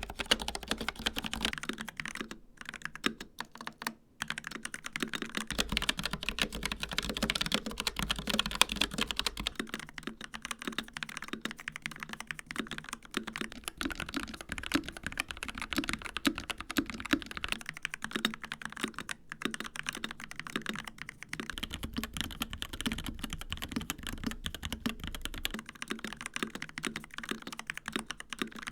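Continuous fast typing on mechanical keyboards with linear switches, switching to a different board about every eight seconds. It runs from an Asus Claymore II on ROG RX Red switches to an Asus Strix Scope RX on ROG RX Red, then a Dark Project KD083A on G3ms Sapphire, then an Epomaker EK68 on Gateron Yellow. The tone of the keystrokes changes at each switch-over, about five, thirteen and twenty-one seconds in.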